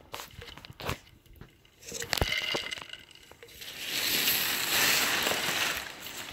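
Plastic protective sheeting crinkling and rustling as it is handled and lifted, after a few light taps. The rustle swells to its loudest in the second half and fades near the end.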